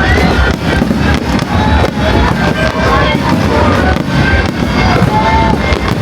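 Aerial fireworks going off in rapid succession: loud bangs and crackles, several a second, over a continuous low rumble, with music playing under them.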